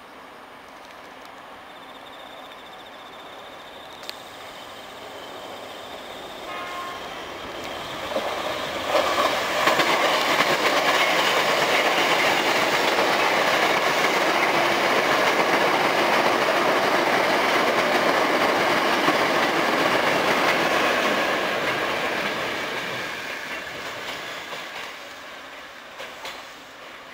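Hankyu 7300 series eight-car electric train arriving and passing close by: wheels rumbling on the rails with clickety-clack over the rail joints. It grows steadily louder, stays loud for about twelve seconds, then fades as the rear cars go by.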